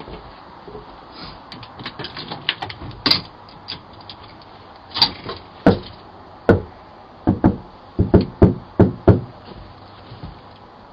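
Knocking on a door, picked up by a doorbell camera's microphone: scattered light taps at first, then louder single knocks, ending in a quick run of about five hard knocks.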